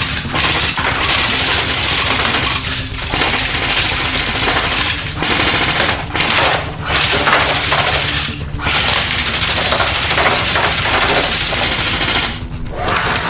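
Airsoft Steyr AUG rifle firing on full auto in several long bursts separated by short pauses, stopping about twelve seconds in.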